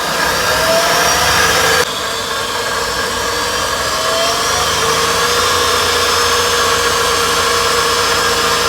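Car engine revved up and held steadily at about 3000 RPM with the accelerator pedal. Its note rises slightly, then holds. The level drops abruptly about two seconds in and then stays steady.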